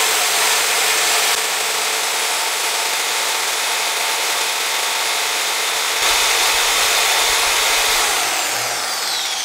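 Corded electric drill running at speed, spinning a wooden chopstick hard against a wooden block so that the wood grinds and rubs in a steady, loud noise as it is friction-drilled for fire. Near the end the pitch begins to fall as the drill slows.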